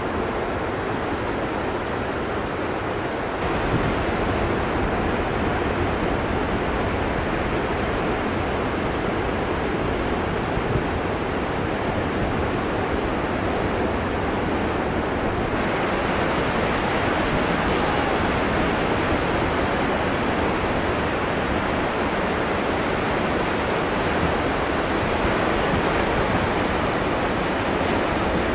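Ocean surf: a steady wash of breaking waves. The sound shifts abruptly about three and a half and fifteen and a half seconds in.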